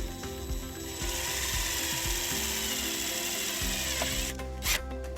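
A power driver running for about three seconds as it drives a self-tapping screw to ground the trailer harness's white wire to the body sheet metal, with clicking before it and one short sharp knock near the end.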